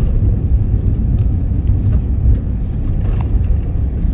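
Steady low rumble of road and engine noise inside a moving vehicle's cabin, with a few faint ticks or rattles.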